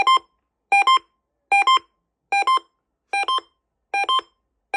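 Pairs of short electronic beeps, each beep a chord of several steady tones, repeating about every 0.8 seconds over FM radio as an Emergency Alert System Amber Alert comes on.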